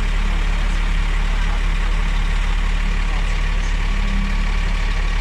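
Heavy truck engine idling steadily with a constant low hum.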